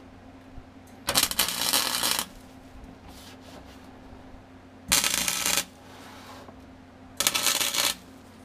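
Wire-feed welder laying three short welds, each a loud crackling sizzle of about a second or less, stitching a steel patch panel into a truck's floor pan.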